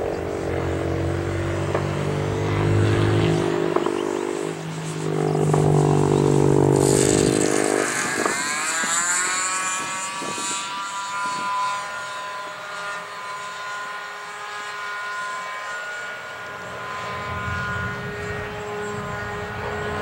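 Radio-controlled model airplane engine and propeller running in flight. The plane is loudest as it makes a low pass about a third of the way in; after that its note sits higher and keeps rising as it pulls away.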